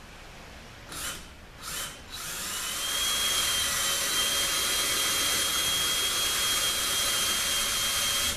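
Power drill boring a hole in a 45RFE transmission valve body: two short blips of the trigger about one and two seconds in, then a steady run of about six seconds with a high whine, stopping suddenly near the end.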